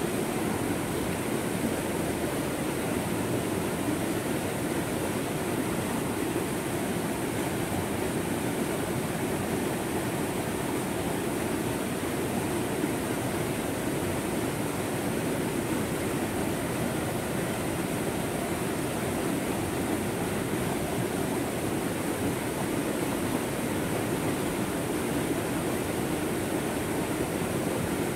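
Water of a small rocky stream rushing down a cascade over boulders: a steady, unbroken rush.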